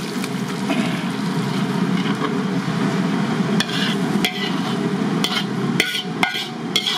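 A metal ladle stirring and scraping sauce in a wok over a steady low rumble, with several sharp clanks of ladle on wok in the second half.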